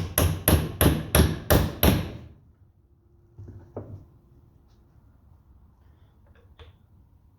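Hammer blows on the tractor's metal parts: a quick, even run of about seven sharp strikes, roughly three a second, which stops about two seconds in. A few faint knocks follow.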